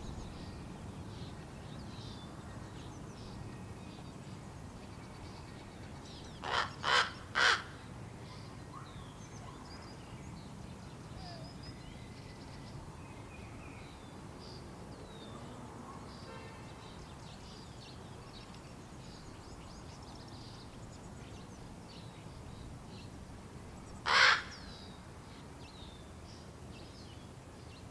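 Fledgling ravens giving hoarse begging calls while waiting to be fed by their parents: three quick calls in a row about six seconds in, then a single call near the end. Faint high chirps sound in the background.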